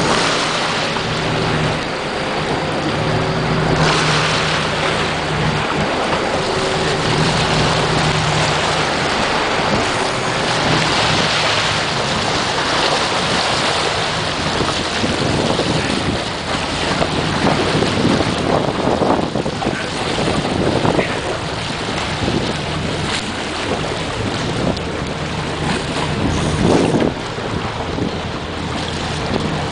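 Sport-fishing boat's engine running with a steady low hum, most distinct in the first ten seconds or so, under wind buffeting the microphone and water rushing and slapping along the hull.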